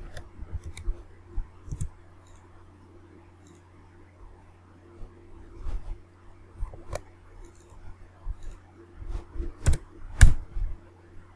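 Computer keyboard keystrokes and mouse clicks in irregular clusters, the loudest near the end, over a steady low hum.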